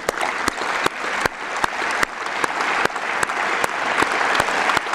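Audience applauding, the applause building over the first second and then holding. The single claps of one person close to a microphone stand out at a steady pace of about two and a half a second.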